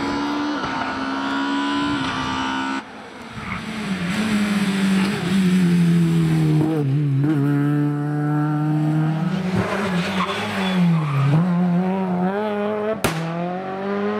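Rally car engines driven hard, revving high, the pitch dipping and climbing again through braking and gear changes. The sound changes abruptly twice where separate passes are cut together.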